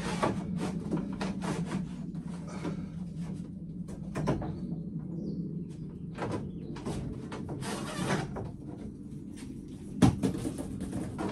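6 mm solar cable being pulled through the gap above the ceiling panels: a run of short scrapes, rustles and knocks against the panels over a steady low hum, with a sharper knock near the end.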